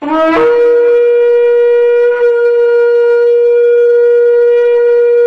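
A shofar blown in one long, steady blast, sliding up into its note at the start.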